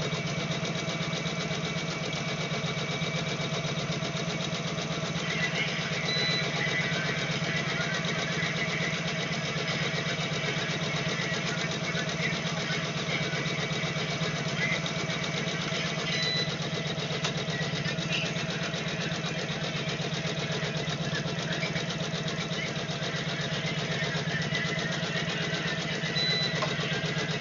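Computerized embroidery machine stitching steadily: rapid, even needle strokes over a steady motor hum.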